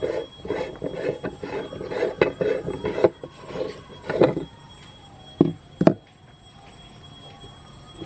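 A hand-cranked metal meat grinder's threaded front ring is being twisted off by hand, grating and rasping on its threads in quick uneven strokes. About five and a half seconds in come two sharp clunks as the metal parts are knocked.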